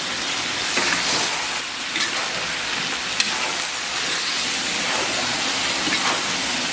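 Chicken pieces and the sauce sizzling in hot oil in a wok while being stir-fried, with a few sharp clicks of the spatula against the wok.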